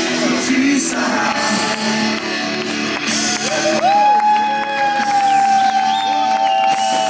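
Live amateur rock band playing a song, with singing over electric guitars and drums. About halfway through, one long note is held out.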